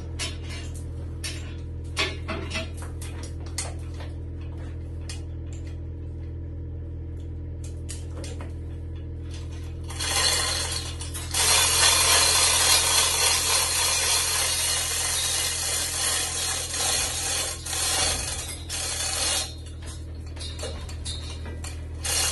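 Metal clinking and rattling from a chain hoist's chain, with a steady low hum underneath. The first half holds scattered sharp taps and clicks. About ten seconds in, a dense, loud clattering begins and lasts roughly ten seconds, then it drops back to a few clinks.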